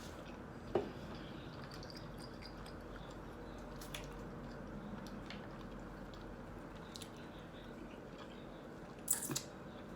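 Quiet chewing and wet mouth sounds of someone eating a breakfast sandwich, with a few soft clicks and a couple of short, sharper sounds near the end.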